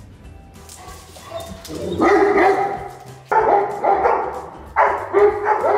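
Dogs, a golden retriever and a Great Pyrenees, barking in three loud bouts starting about two seconds in: alarm barking at a person in an inflatable triceratops costume outside the glass.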